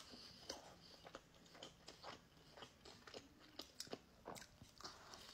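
Faint close-up chewing of a mouthful of sandwich, with small crunches and wet mouth clicks scattered irregularly throughout.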